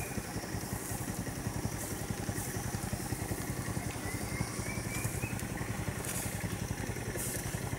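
Vehicle engine idling with a steady low throb.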